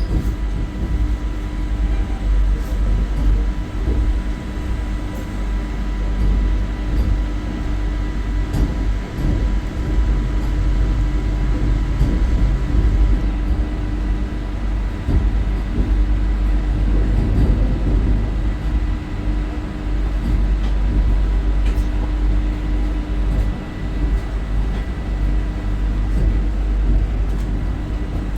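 Vande Bharat Express electric train set running: a steady rumble with a faint, steady whine above it.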